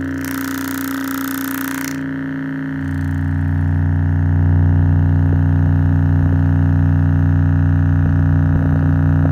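Bare 4-inch subwoofer driver playing a steady, buzzy low-frequency test tone for an excursion test. A short hiss sits over it in the first two seconds, and the tone gets louder about three seconds in.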